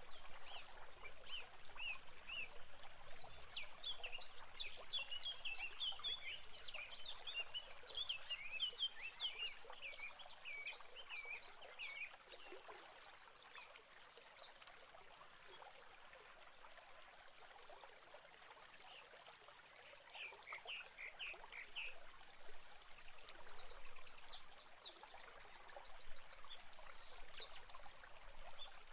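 Small songbirds chirping over a steady hiss: a dense run of quick chirps that thins out about ten seconds in, more chirps about twenty seconds in, and short rapid high trills now and then.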